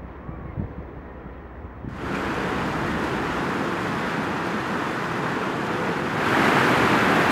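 Faint wind on the microphone for about two seconds, then the steady rush and splash of water cascading over a stone-block fountain, getting louder about six seconds in.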